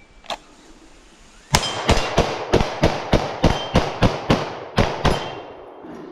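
Rapid string of about a dozen pistol shots, roughly three a second, starting about a second and a half in and stopping about five seconds in.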